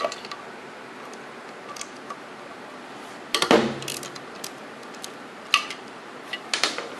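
Scattered metallic clicks and clinks of a thin double-ended ratchet and socket working loose the 10 mm connecting-rod bolts inside a Tillotson 212cc engine, with a louder clank about three and a half seconds in.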